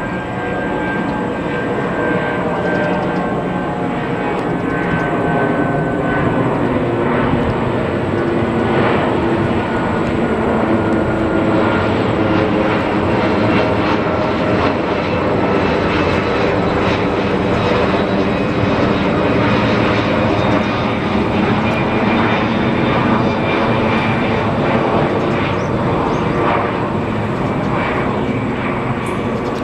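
Jet noise from an Airbus A330-300's two Rolls-Royce Trent 700 turbofans as the airliner climbs out overhead after takeoff. It is a loud, steady rushing roar with whining tones that slowly drop in pitch as the aircraft passes, fading a little near the end.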